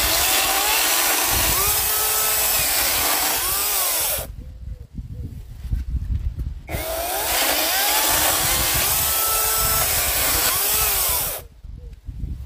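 A Parkside Performance 40V cordless brushless chainsaw cutting through a thin log in two cuts of about four to five seconds each. During each cut the motor's whine bends up and down in pitch under load. The saw drops away for about two seconds between the cuts, and again near the end.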